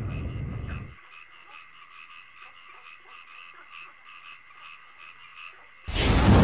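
Frogs calling in a fast, even rhythm, about four calls a second, as a night background. A loud rumbling blast dies away about a second in, and another loud blast crashes in near the end.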